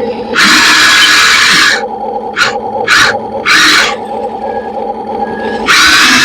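RC model excavator's motors whining in repeated loud bursts as it works, one long burst and several short ones, over a steady pulsing lower hum.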